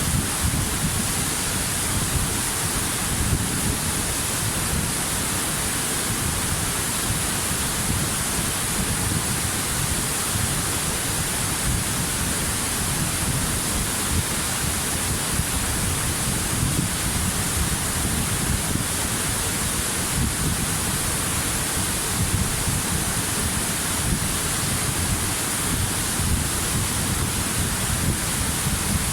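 Waterfall: a steady rush of falling water with a deep low rumble and a bright hiss on top, unchanging throughout.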